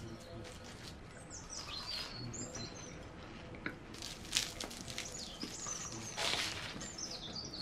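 Flaky, sugar-crusted puff pastry crackling as a piece is broken off and bitten, with the loudest crunch about six seconds in.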